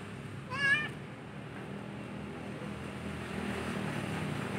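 Steady low rumble of a distant engine under open-air ambience, with one short wavering high-pitched call about half a second in.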